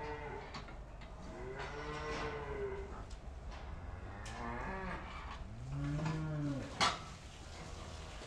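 Holstein dairy cows mooing: several long moos one after another, each rising and then falling in pitch. A single sharp knock near the end is the loudest moment.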